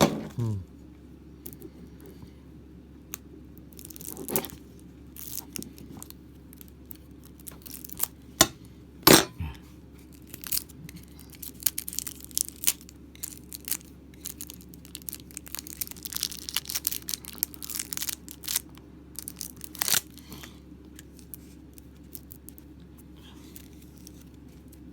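Plastic wrapping being torn and crinkled open, with scattered clicks and taps from handling game components, and a few sharp ticks about a third of the way in and again later.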